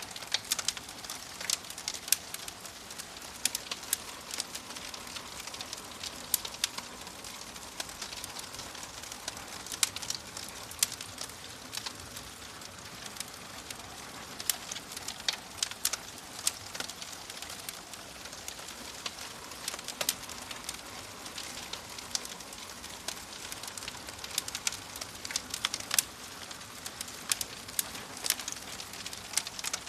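Wood fire burning in a fireplace, with a steady hiss and frequent irregular sharp crackles and pops.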